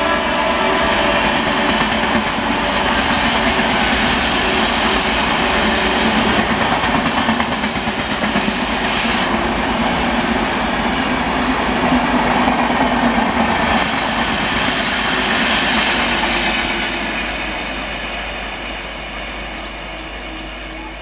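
Express train's LHB passenger coaches rolling past at speed: a steady rumble and clatter of wheels on rails, fading away over the last few seconds as the train recedes.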